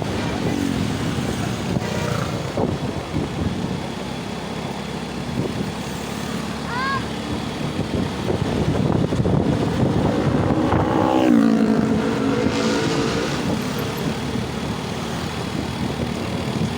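Road traffic noise: vehicle engines and tyres running steadily on the road. A short rising tone comes about seven seconds in, and a passing vehicle's pitch falls away around eleven to twelve seconds in.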